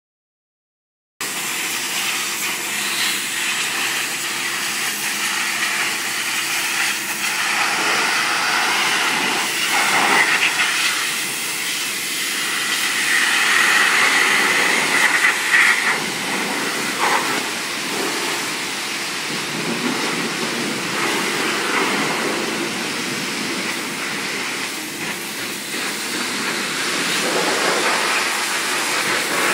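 High-pressure wash wand spraying water onto a semi truck: a steady hissing spray that swells and eases as the jet moves, with a faint steady hum underneath. It starts suddenly about a second in.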